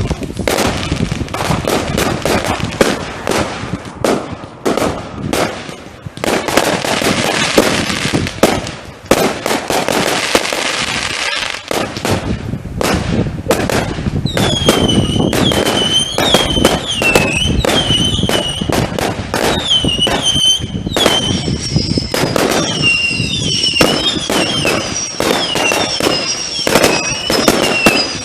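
Fireworks going off in quick succession, a dense run of bangs and crackles. From about halfway through, short high whistling tones that dip in pitch repeat several times a second over the bangs.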